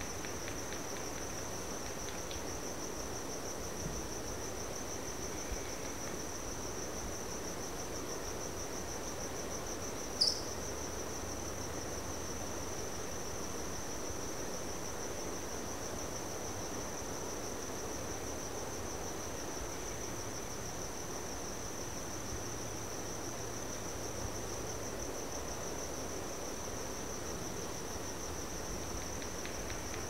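Crickets trilling in a steady, high-pitched, finely pulsing chorus, with one brief sharp chirp about ten seconds in, the loudest sound here.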